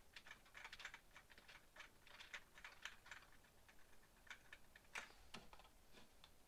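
Faint computer keyboard clicks, keys tapped in quick irregular runs, with one louder click about five seconds in.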